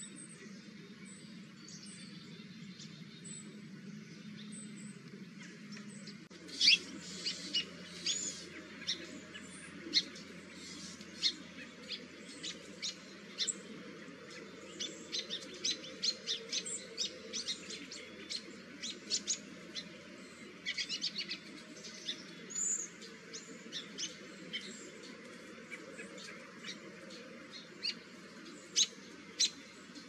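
Small songbirds calling. For the first few seconds there are high thin notes about once a second. After a change about six seconds in, many short sharp chips follow, some in quick runs and a few much louder than the rest.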